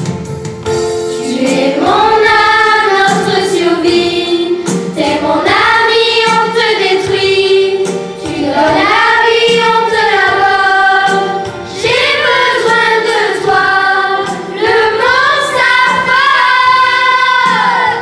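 A group of children singing a song together over instrumental backing, in long held phrases separated by short breaths.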